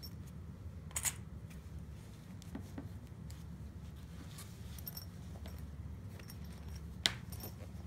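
Hands handling a fabric clutch wallet and putting on sewing clips: soft rustling with a few light clicks, the sharpest near the end, over a steady low hum.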